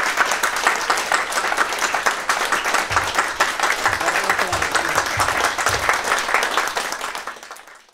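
Small group of guests applauding, a steady patter of hand claps that fades out near the end.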